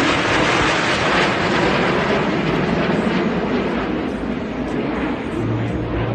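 Jet aircraft formation flying past: a steady rushing jet roar that eases a little after about four seconds.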